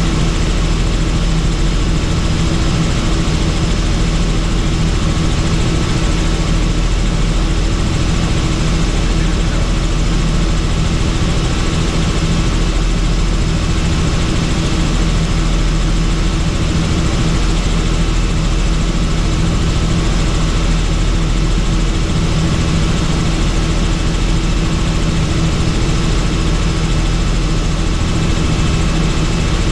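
Helicopter in flight: a loud, steady drone of engine and rotors, with a constant low hum and a few fixed whining tones above it.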